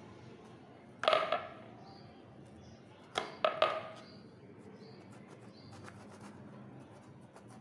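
Knife cutting a bitter gourd on a wooden chopping board: a sharp knock with a short ring about a second in, and three more close together about three seconds in. Then comes a run of faint, quick clicks as the blade slices through the gourd.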